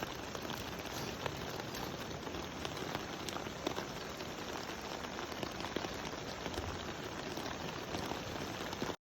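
Steady rain falling, an even hiss with scattered small drop ticks, cutting off abruptly at the very end.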